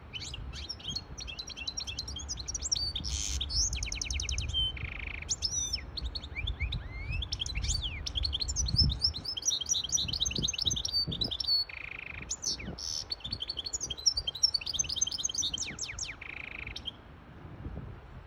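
Hybrid goldfinch singing a long, rapid twittering song of fast trills and chirps, with a couple of short breaks along the way.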